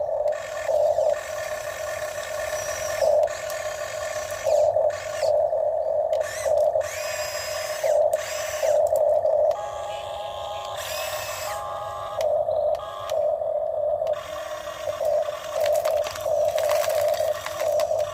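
Electric motors of a Huina RC excavator whining as the model works, the whine swelling and easing again and again, with some scraping in the middle.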